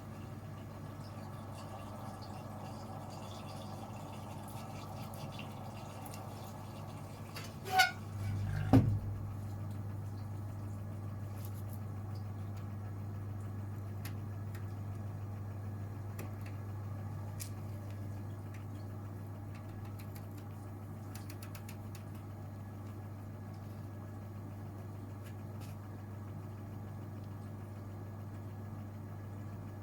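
Gorenje UseLogic 65165 washing machine running mid-programme with a steady low hum. Two sharp clicks come about eight seconds in, with a brief low surge between them, after which the hum is slightly louder.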